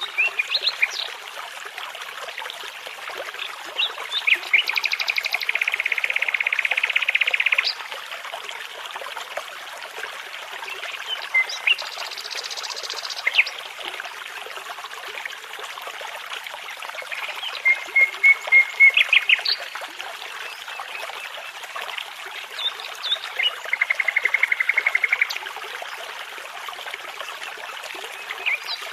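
A brook babbling steadily under songbird song. The birds give several runs of fast repeated notes, the longest lasting about three seconds, and a short buzzy phrase about midway.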